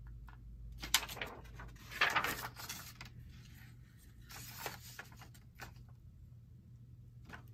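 Paper being handled on a craft cutting mat: a large sheet and a card file folder rustling and sliding across it in a few bursts, with a few light knocks.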